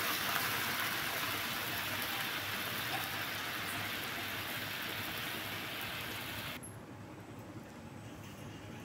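Chicken and red gravy sizzling in hot ghee in a kadhai: a steady hiss that drops suddenly to a much fainter sizzle about two-thirds of the way through.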